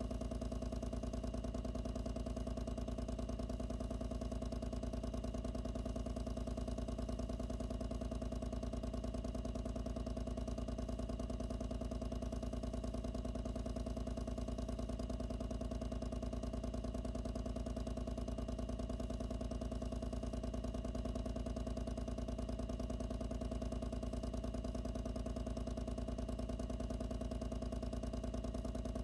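Loud pump running steadily, heard up close from inside its enclosure: a constant mechanical hum with a fast, even pulsing that does not change.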